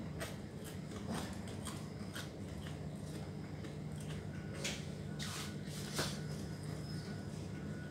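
A person eating rice with the hand from a plastic bowl: scattered short clicks and smacks of chewing and of fingers working the food in the bowl, over a steady low hum.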